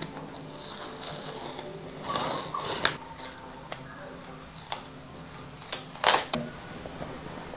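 Paper tear-strip seal being peeled and torn off an iPhone 15 retail box: paper and cardboard rustling and tearing, with several sharp clicks and snaps, the loudest about six seconds in.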